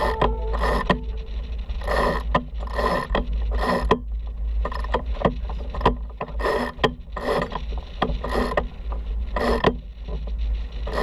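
Sailboat winch being cranked to unfurl the jib, its pawls ratcheting in short bursts about one to two a second. Steady wind rumble on the microphone underneath.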